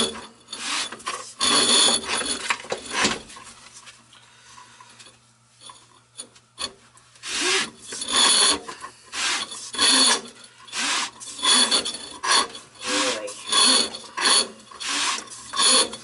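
Drain-snake cable scraping and rasping against the inside of an old metal drain pipe as it works through a clog, in repeated strokes. It goes quiet for a few seconds near the middle, then comes back in a steady rhythm of about one and a half strokes a second.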